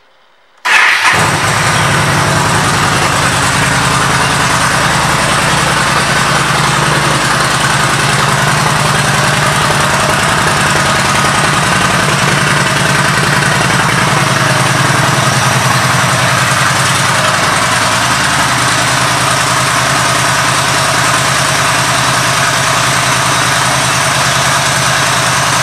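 Yamaha V Star 1300's V-twin engine, fitted with a Cobra 2-into-1 exhaust, starts about a second in, catching at once. It then idles steadily.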